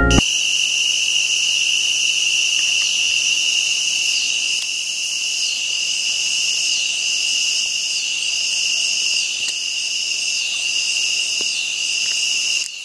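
A steady chorus of crickets and other insects, several trilling at once at different high pitches. One layer pulses slowly, about once a second.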